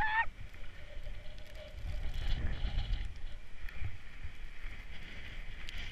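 Skis sliding over packed snow, a steady hiss under a low rumble of wind on the microphone.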